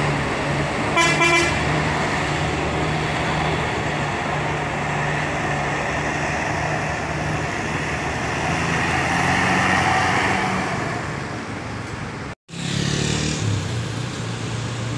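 Coach diesel engine running as the bus pulls out, with one short horn honk about a second in. The engine sound swells around nine to ten seconds in, then breaks off briefly and another coach engine carries on.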